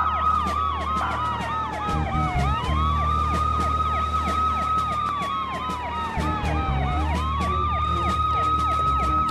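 Police sirens wailing: one slow wail climbs, holds high and then slides down, starting over twice. Over it a second siren yelps with fast rising sweeps, about four a second.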